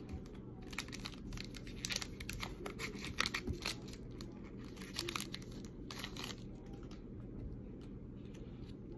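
Wrapper of a Panini Prism soccer card pack crinkling and tearing as it is opened by hand. Quick sharp crackles for the first six seconds or so, then quieter handling.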